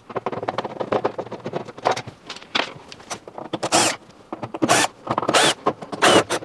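Cordless drill-driver backing out the screws of a washing machine's front panel. A run of quick clicks and rattles comes first, then four short whirring spins in the second half.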